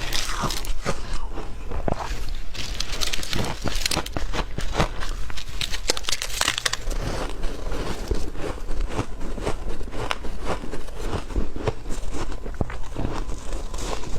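Close-miked crunching of hard ice being bitten and chewed: a dense, irregular run of sharp cracks and crackles, with no pause.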